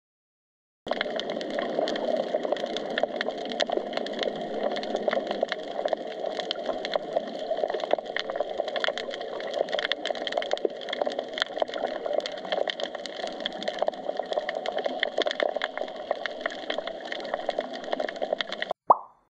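Underwater ambience picked up by a submerged camera: a dense, steady crackling of many small clicks. It starts about a second in and cuts off abruptly near the end, with one short loud burst just after.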